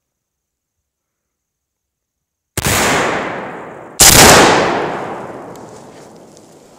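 Rifle fire and an exploding Tannerite target: two very loud blasts about a second and a half apart, the second louder, each followed by a long echoing rumble that fades slowly.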